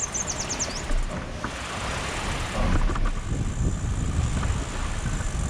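Wind buffeting the microphone as a steady low rumble. A bird gives a quick run of about six descending high chirps in the first second, and there are a few light clicks.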